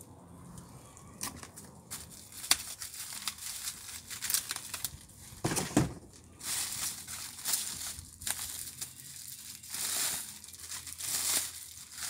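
Thin plastic bag wrapped around an electric guitar crinkling and rustling in irregular bursts as the guitar is worked out of it, with one louder knock a little before halfway.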